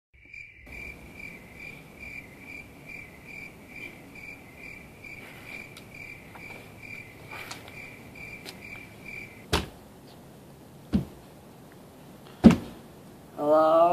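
A cricket chirping steadily, about two to three chirps a second, stopping abruptly about nine and a half seconds in. Then three loud single knocks on a door, roughly a second and a half apart, and a brief voice right at the end.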